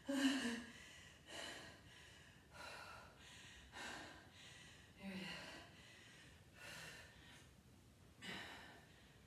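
A woman breathing hard after exertion, about seven heavy breaths roughly one every second and a half, the first and loudest voiced like a sigh.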